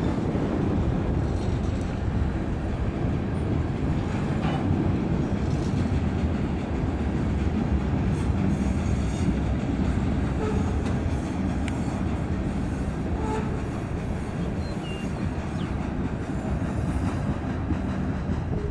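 Freight train of tank cars and covered hopper cars rolling past, a steady rumble of steel wheels on the rails.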